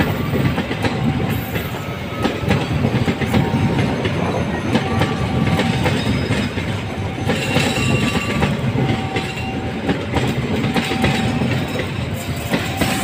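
Passenger train coaches rolling past: a steady rumble of wheels with repeated clickety-clack knocks over rail joints and points, and brief high wheel squeals now and then.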